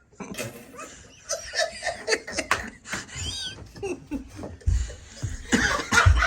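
People giggling and snickering, mixed with voices imitating animal noises, in short scattered bursts with a high wavering squeak a little past the middle.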